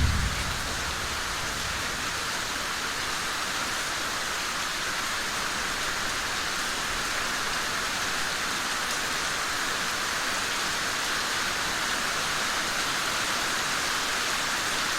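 Steady rain falling, an even hiss. A low thunder rumble fades out about half a second in.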